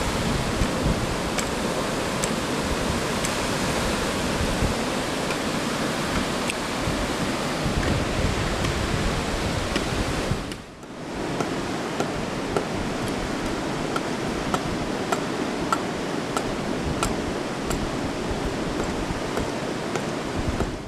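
Surf washing in a steady rush, with faint ticks scattered through it; the sound dips briefly about ten and a half seconds in.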